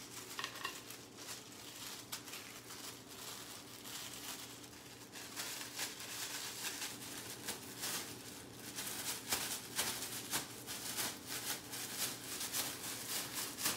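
Clear plastic disposable glove crinkling and rustling as it is pulled onto a hand, in many quick strokes that grow busier about halfway through.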